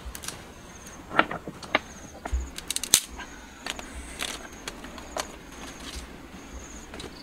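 Scattered sharp clicks and knocks, loudest about a second in and again about three seconds in, over a short high chirp that repeats every second or so.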